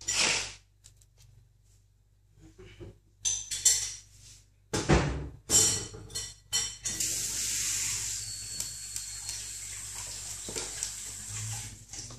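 Ferret rummaging through scraps of paper and card in a plastic litter box: several sharp clattering knocks, then a steady papery rustling from about seven seconds in until near the end.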